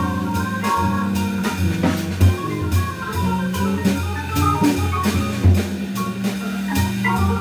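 A jazz organ trio plays live: an electric organ holds low bass-line notes and chords, a hollow-body archtop electric guitar plays single notes, and a drum kit keeps time with regular cymbal strokes.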